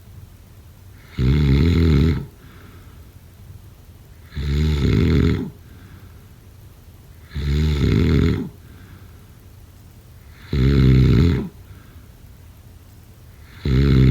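A person snoring in a steady rhythm: five loud, rough snores, each about a second long and roughly three seconds apart, with quiet breathing gaps between them.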